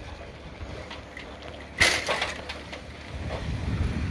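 Bicycle riding noise: a low rumble of wind and tyres, then a single sharp clatter of the bicycle jolting about two seconds in. The rumble grows louder near the end as the bike rolls onto a rough, puddled dirt track.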